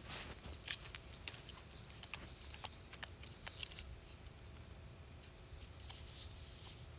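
Faint scattered clicks and scratchy rustles, a few each second, over a low steady rumble.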